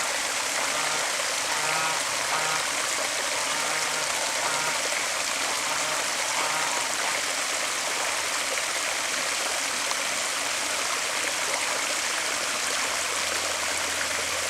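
Water running steadily over a pond spillway, a constant rushing hiss. Geese honk faintly a few times in the first half.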